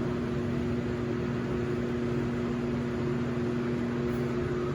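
GE top-load washing machine running on its spin cycle with a steady electric hum, while the basket does not spin: the spin fault it is being repaired for.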